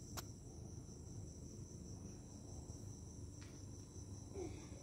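Crickets chirring steadily and faintly in the background, with a couple of soft clicks.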